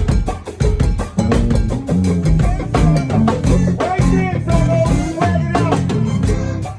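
Go-go band playing: drum kit and percussion keep a steady, busy beat under a bass line.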